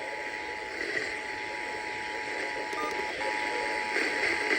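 Emergency Alert System attention signal relayed by a radio station: a steady two-tone alarm heard through a hiss of broadcast static, announcing that an emergency alert is about to be read.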